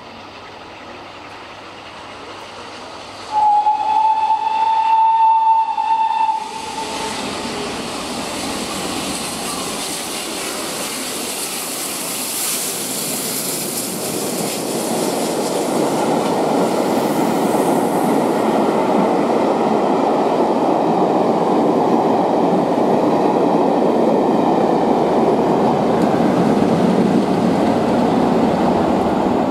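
GWR Castle class 4-6-0 steam locomotive 'Clun Castle' sounding its whistle in one steady, high blast of about three seconds, starting about three seconds in. The train then runs through at speed: a rushing noise of the locomotive and its long rake of coaches passing on the rails, growing louder about halfway through and staying loud.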